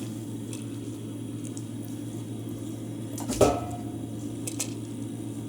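Steady low electrical hum in a small room. A single sharp click of a switch about three and a half seconds in has a brief ring after it, and a fainter click follows about a second later.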